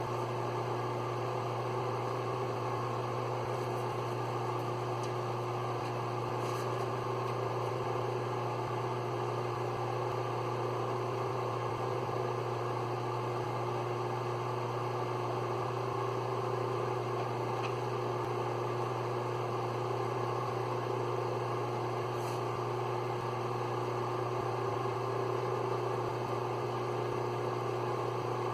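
Duplo 660 hydraulic guillotine paper cutter's motor running with a steady hum, powered through its newly replaced main switch.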